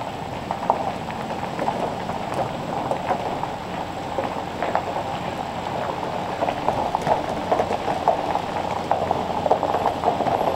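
Tires of a heavily loaded truck rolling slowly over a gravel driveway: a steady crackle of stones crunching and popping.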